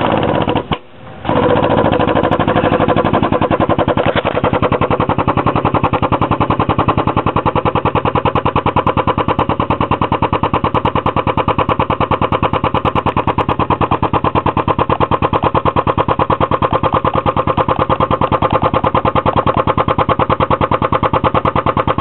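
Hydraulic pump powering a bead breaker's ram, running with a fast, steady pulsing while the ram pushes to break a truck tire's bead loose from a split ring rim. It cuts out briefly about a second in, then runs on without a break.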